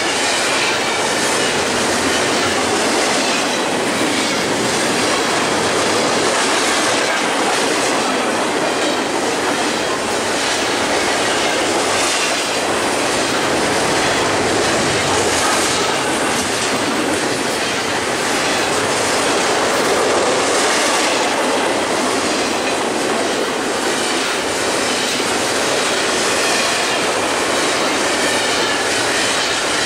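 Double-stack intermodal container train's well cars rolling past at close range: a steady, loud rolling noise of steel wheels on the rails.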